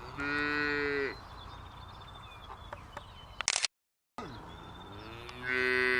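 Cattle mooing: two long moos, one near the start and one near the end, each sliding down in pitch as it ends. Between them a short click, then the audio cuts out completely for about half a second.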